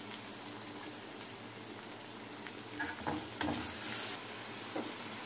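Freshly added chopped onions sizzling in hot oil in a metal kadai, a steady frying hiss. A metal ladle clicks against the pan a few times a little past the middle as the onions are stirred.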